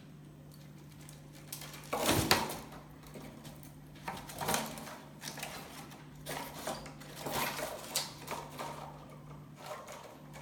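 Kitten playing at night: irregular rustles and knocks, the loudest about two seconds in, over a steady low hum.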